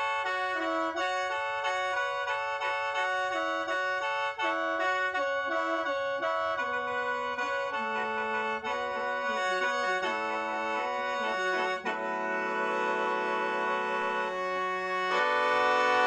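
Lao khaen, a bamboo free-reed mouth organ, playing a quick melody over steady drone notes. About twelve seconds in it changes to long held chords, and it grows louder near the end.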